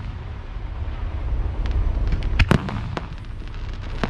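Fireworks display: aerial shells bursting with sharp bangs, over a low steady rumble. It is fairly quiet for the first second and a half, then the bangs come in a cluster about two and a half seconds in, and more start near the end.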